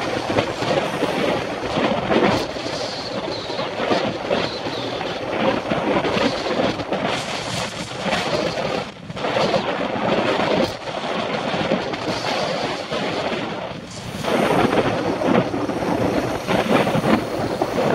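Wind buffeting the microphone of a bicycle-mounted camera while riding, mixed with road and traffic rumble. The rumbling noise swells and dips, falling away briefly about nine seconds in and again near fourteen seconds.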